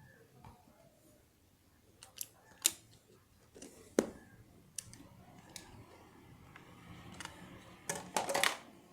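Handling of a smartphone's retail box and accessories: a series of sharp clicks and taps, then a louder burst of clicking and rustling near the end.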